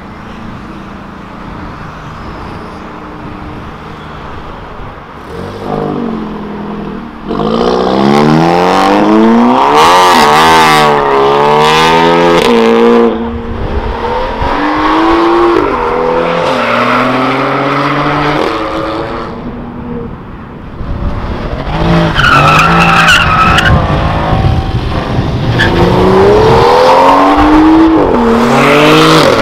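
Modified performance cars accelerating hard away from a junction one after another, engines revving up and shifting through the gears with loud exhausts. The first few seconds hold quieter engine noise before the first car opens up, and a short high squeal comes about two-thirds of the way through.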